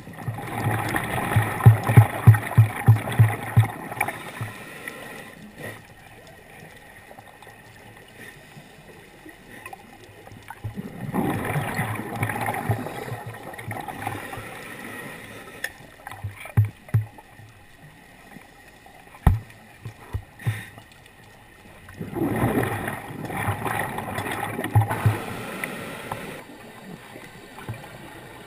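A scuba diver's exhaled air bubbling out of the regulator underwater: three bursts of bubbling, each a few seconds long and about ten seconds apart, with quieter breathing between.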